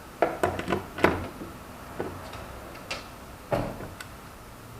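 A run of light metallic clicks and knocks from parts and tools being handled during clutch and gearbox work, several quick ones in the first second or so and a louder knock past halfway.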